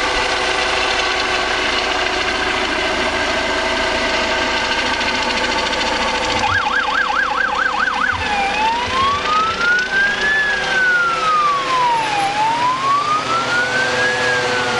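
Emergency vehicle siren starting about halfway through: a fast warbling yelp for a second or two, then a slow rising and falling wail. It sounds over a loud, steady engine drone.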